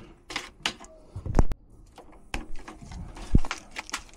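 A string of sharp clicks and knocks from wire strippers and wire handling as a red low-voltage thermostat wire is worked on. The loudest knocks come about a second and a half in and again just past three seconds.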